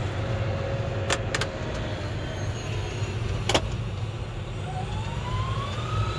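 Tractor engine running steadily under ploughing load, with a few sharp knocks and rattles and a whine that rises steadily in pitch over the last second and a half.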